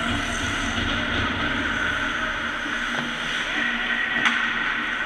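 Ice hockey play: skate blades scraping the ice over a steady hum, with two sharp stick or puck clacks about three and four seconds in.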